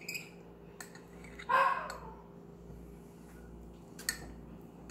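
A single short animal call about a second and a half in, over a steady hum, with a few light clicks.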